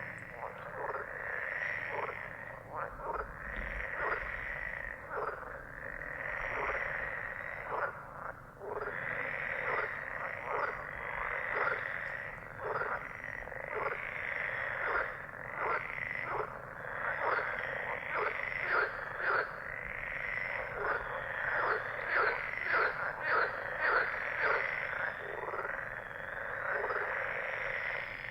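A chorus of many frogs croaking at once, short calls overlapping thickly and without a break.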